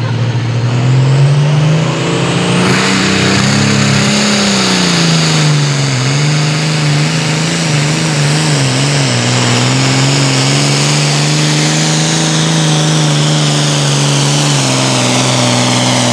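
International Harvester pulling tractor's turbocharged diesel engine at full throttle, hauling a weight-transfer sled down the track. Its pitch climbs over the first few seconds, dips and wavers about six seconds in, then holds steady under load.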